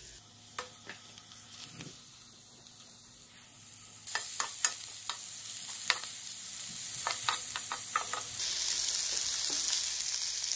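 Diced tomatoes and bell peppers frying in oil in an electric skillet: a sizzle starts suddenly about four seconds in as the tomatoes go in, and gets louder again near the end. A spoon knocks and scrapes against the pan as the vegetables are stirred.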